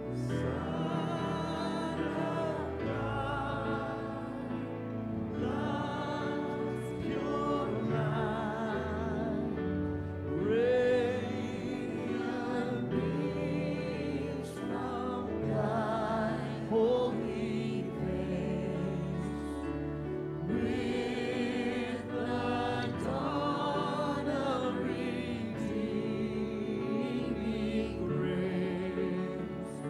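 Sung worship music: voices singing long, held phrases with vibrato over a steady instrumental accompaniment.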